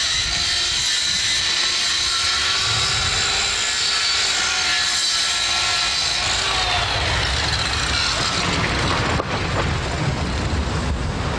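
A motor or engine running with a steady drone and a high whine. The sound changes abruptly about nine seconds in to rougher, lower noise.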